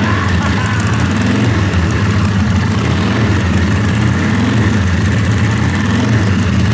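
1947 Harley-Davidson V-twin running steadily with the speed wavering a little, its exhaust open with no muffler fitted. It sounds flat for lack of back pressure, on its first run after about 60 years standing.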